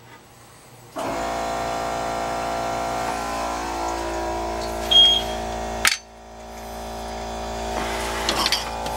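Dishwasher drain pump humming steadily as it pumps the antifreeze-laced water out. It starts about a second in and cuts off just before six seconds, with a short high tone about five seconds in. Water then drains down through the sink's garbage disposal, growing louder, with a few clatters near the end.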